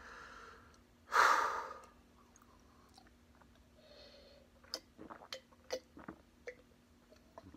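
A person sighs out loudly through the mouth about a second in, then swallows water in a series of small gulps with short wet clicks while drinking from a metal tankard.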